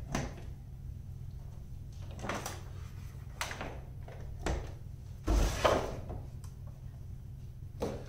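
A computer monitor and its cables being handled on a workbench: a handful of short knocks and rustles, the loudest with a low thump about five and a half seconds in, over a steady low hum.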